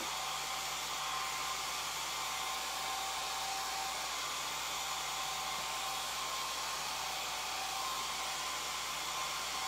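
Handheld hair dryer running steadily, a even rush of air with a faint motor whine, blowing on wet chalk paste to dry it.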